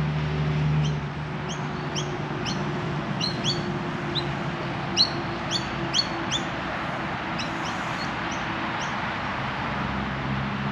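A bird chirping repeatedly in short, sharp notes, roughly two a second and loudest midway, over a steady hiss of background traffic.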